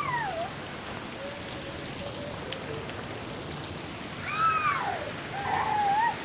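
Steady rain with running water. Over it come a few short, high-pitched rising-and-falling cries, at the very start, about four seconds in and again near the end.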